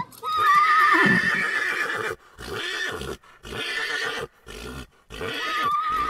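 A horse whinnying. It opens with a loud neigh carrying a high quavering note, breaks into several shorter pulsing calls, and the quavering note returns near the end.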